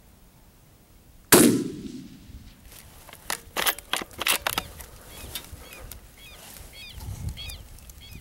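A single rifle shot about a second in, its report rolling off over about a second, followed by a quick run of sharp clicks and knocks. From about halfway on, a bird calls over and over.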